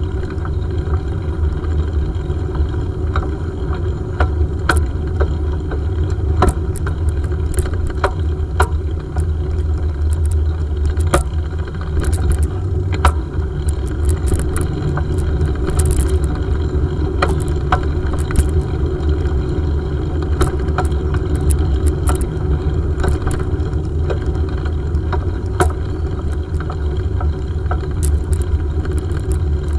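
Mountain bike ridden along a paved path, heard through a handlebar-mounted camera: a steady low rumble with frequent sharp clicks and rattles as the bike jolts over the surface.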